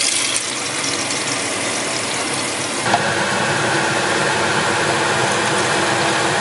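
Tap water running into a plastic measuring jug, then, after a click about three seconds in, water poured from the jug into a pot of soup, with a steady mechanical hum behind it.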